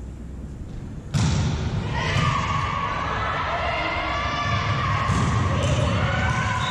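Volleyball rally in a gym hall: the ball struck with thuds, feet on the court and players' shouted calls echoing in the hall. It gets louder about a second in.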